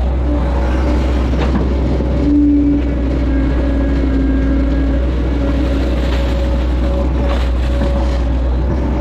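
Hitachi excavator's diesel engine running steadily under working load, heard from the operator's cab, as the bucket digs mud from a ditch and dumps it. A higher hydraulic whine comes in over the engine about two seconds in, while the bucket is digging, and fades out near six seconds.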